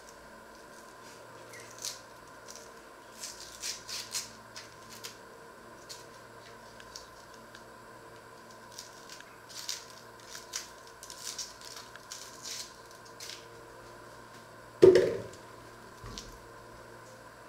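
Dry, papery onion skins crackling and a small kitchen knife scraping as an onion is peeled by hand over a wooden cutting board, in short crisp strokes. About 15 s in comes a single loud knock on the wooden board.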